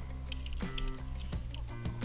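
Background music with a steady beat of about three hits a second over sustained bass notes.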